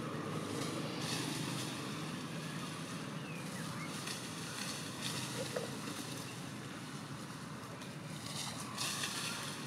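Steady outdoor background noise: a low rumbling haze with a hiss that swells and fades, and no clear animal calls.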